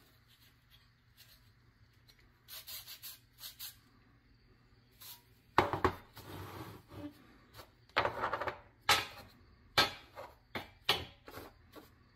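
Handling noise from a rusty pressed-steel toy truck chassis: faint rubbing at first, then a loud knock about halfway through as the chassis is set down on a wooden table. Near the end comes a run of sharp knocks and clatters as small toy wheels are dropped into the metal chassis.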